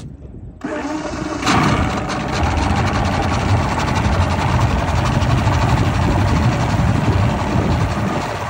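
Johnson 150 FastStrike two-stroke V6 outboard starting up about half a second in and picking up about a second later. It then runs steadily at idle with a low rumble, water churning out at the exhaust.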